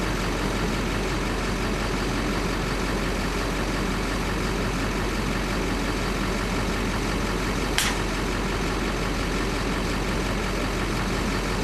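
Steady rumble of an idling vehicle engine, with a single sharp click about eight seconds in.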